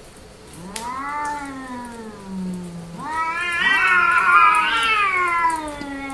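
Female cats in heat yowling: a long drawn-out call that rises and falls about a second in, then louder, overlapping yowls from about three seconds in.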